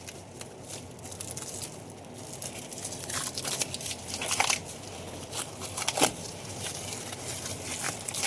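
Plastic wrapping crinkling and crackling as it is handled and pulled off a new tractor steering wheel, with irregular rustles and a couple of sharper snaps about halfway through.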